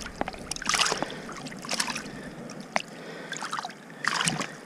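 River water splashing and sloshing around a landing net held over the side of a boat, in two stronger bursts about a second in and near the end, with a few light knocks between.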